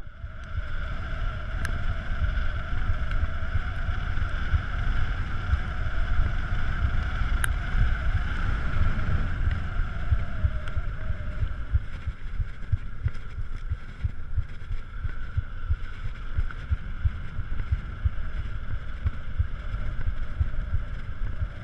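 Mountain bike rolling along a paved path: wind buffeting the camera microphone over a low rumble from the tyres. A steady high hum fades after about ten seconds.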